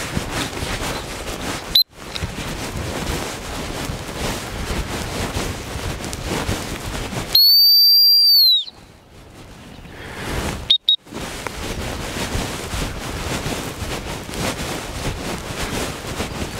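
A dog training whistle: a short chirp about two seconds in, one loud, high, steady blast lasting a little over a second around the middle, and two quick pips shortly after, over steady wind noise on the microphone.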